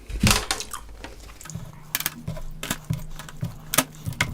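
A series of sharp clicks and light taps, like tableware being handled, with a low steady hum starting about a third of the way in.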